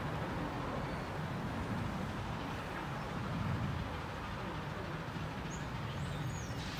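Steady low outdoor rumble with no distinct machine tone, and faint high bird chirps about six seconds in.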